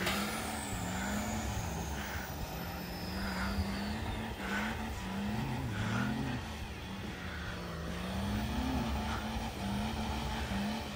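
Diesel 4x4 engines revving hard in snow, their pitch rising and falling again and again.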